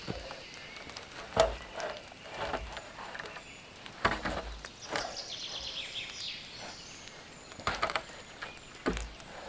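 Footsteps on wet grass and a long dead tree branch being hauled and shifted over the ground: a handful of scattered knocks and dull thuds, with a brief rustling scrape in the middle.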